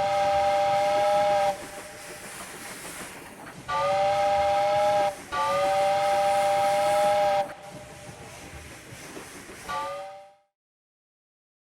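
A loud pitched whistle blowing in three long blasts and then a short one, over a steady hiss. It goes silent about a second before the end.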